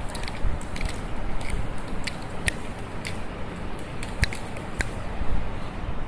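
A cat's claws catching and scratching on rough pine bark: scattered light clicks and crackles, a few every second, over a low rumble.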